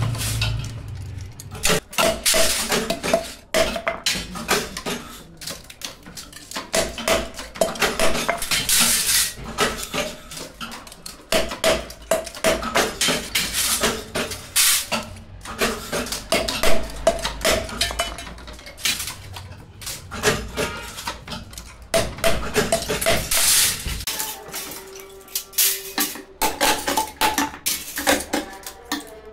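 Irregular metallic clinks, clatter and knocks of hand work with metal parts and tools in paint brush making. About five seconds before the end, the low rumble underneath drops away and a steady tone comes in.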